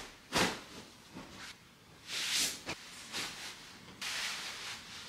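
Bedding being handled: a pillow and its cloth case swishing and rustling in several separate bursts, the loudest about two seconds in, with one small click about halfway through.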